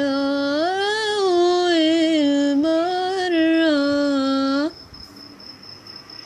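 A solo female voice sings a long wordless phrase, its pitch swelling up and down, then stops abruptly about three-quarters of the way through. A faint, high, steady chirping like crickets runs underneath and is left alone after the voice stops.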